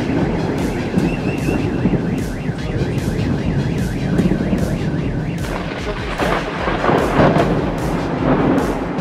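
Thunder rumbling on without a break during a thunderstorm, heavy and low, swelling louder about six to seven seconds in.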